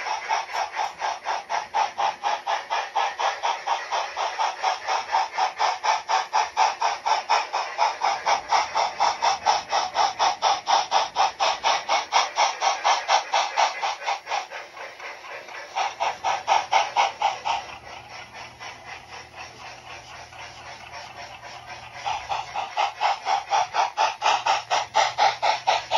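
Model of Tweetsie steam locomotive #12 chuffing in a fast, steady beat as it runs. The chuffs fall quieter for several seconds after the middle, then come back louder near the end.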